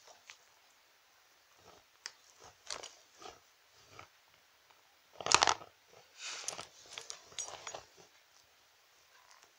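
Small toy figures being handled and knocked against each other on a toy playset: scattered light taps and scrapes, with one louder clatter about five seconds in as the mouse figure is knocked down.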